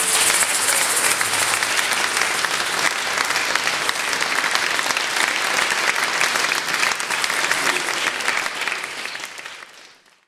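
Audience clapping after the last notes of a song, fading out near the end.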